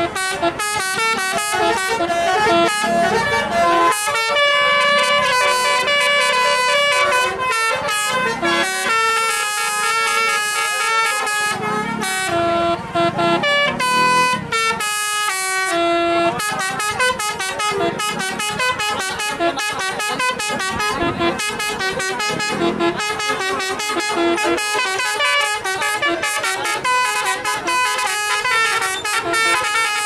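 Basuri telolet horns on tour buses playing melodies without a break: fast runs of short, pitched horn notes stepping up and down, with a few longer held notes about halfway through.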